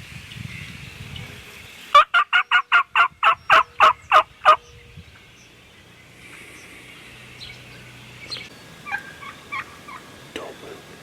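Turkey yelping: a loud run of about a dozen evenly spaced yelps over two and a half seconds, starting about two seconds in. A few faint short calls follow later.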